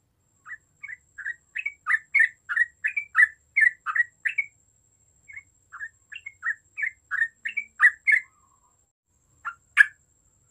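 Yellow-vented bulbul (trucuk) singing: a fast run of short chirping notes, about three a second, in two phrases with a brief pause between. Two more notes come near the end, the last the loudest.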